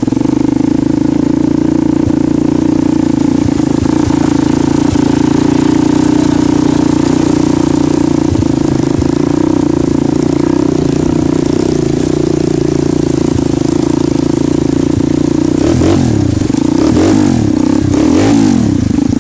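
Motorcycle engine running at a steady speed, heard from the bike while riding along a rocky riverbed.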